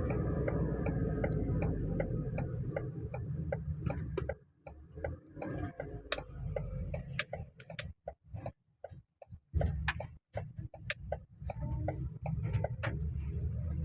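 Cabin of a 2020 Ford Transit on a test drive: a steady low road and engine rumble with a regular ticking, two or three ticks a second. The rumble cuts out for about five seconds in the middle while the ticking goes on, then returns.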